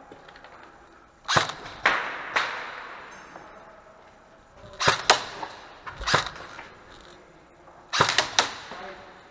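Airsoft guns firing single shots in short groups of two or three, about nine sharp cracks in all, each ringing out in a reverberant echo.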